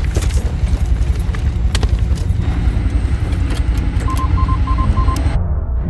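Inside a military helicopter's cabin: a loud, deep throbbing drone of rotors and turbine engines, with scattered clicks and rattles. About four seconds in come four short electronic beeps, evenly spaced. Just before the end the sound turns abruptly duller as the upper range drops away.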